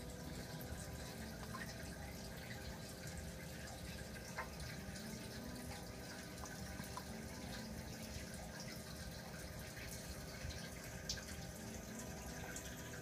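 Reef aquarium water circulating steadily: a trickling, dripping water sound with scattered small plinks over a low steady hum.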